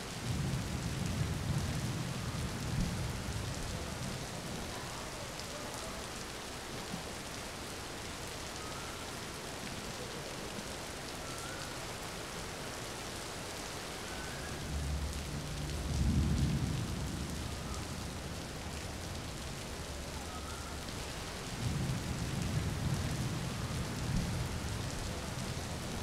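Steady rain hissing, with low rolls of thunder three times: near the start, in the middle and near the end. The middle roll is the loudest.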